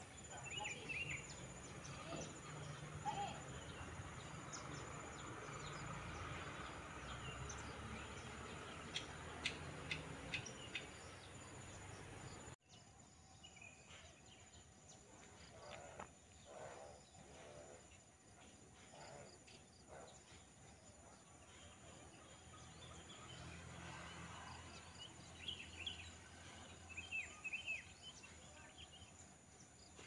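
Rural outdoor ambience: a steady background hiss with scattered short bird chirps near the start and again toward the end. A little under halfway through, the background drops suddenly to a quieter level.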